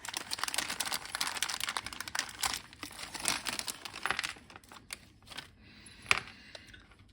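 Crinkling of plastic packaging and quick small clicks as a 5-pin DIN plug is taken out and handled, busy for about four and a half seconds, then a few sparse clicks with one sharp click about six seconds in.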